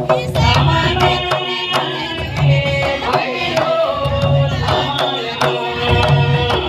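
Two-headed mandar barrel drums beating a dance rhythm, with deep booms and sharp strokes, under group singing.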